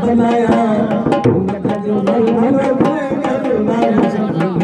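A man's voice singing a folk song, accompanied by a dhol barrel drum beaten by hand in quick, steady strokes.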